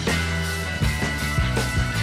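Background music with a bass line and a beat.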